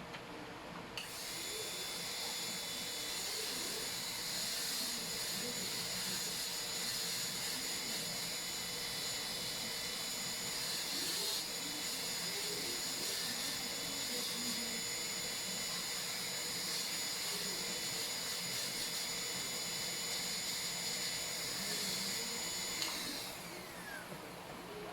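Dental high-speed handpiece (drill) running at a steady high whine while cutting a cavity preparation in a molar, then winding down with a falling pitch near the end.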